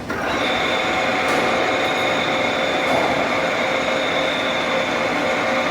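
Large 10 m Poręba lathe running in reverse on a test run: a steady mechanical whine with a constant high tone over an even machinery noise.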